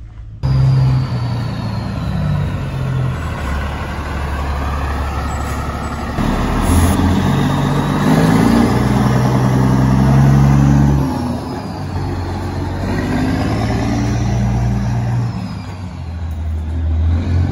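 Semi truck's diesel engine running loud as the tractor drives off and accelerates, the engine note stepping up and down.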